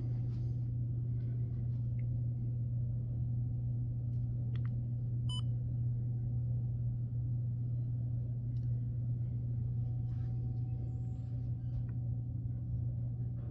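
Steady low hum with a fainter steady tone above it, broken once about five seconds in by a short high electronic beep.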